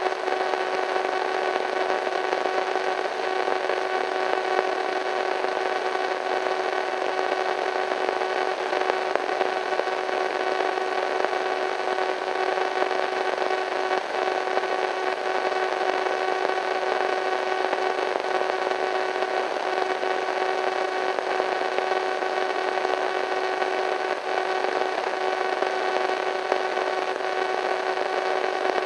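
Radio static: a steady white-noise hiss with a constant humming tone and its overtones running through it, unchanging throughout.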